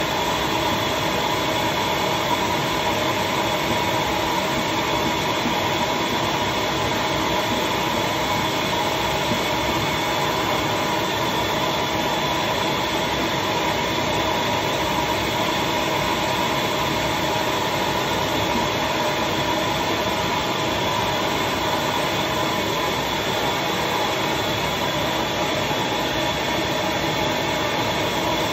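Vacuum motor of a leaf-casting suction setup running steadily, an even whine over a rush of air, pulling wet paper pulp into the gaps of a comic book's paper wrap.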